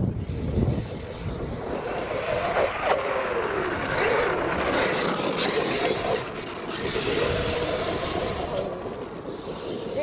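Arrma Outcast 8S, a 1/5-scale brushless electric RC stunt truck, driving on sand: its motor whine rises and falls again and again with the throttle, over the hiss of its tyres churning sand.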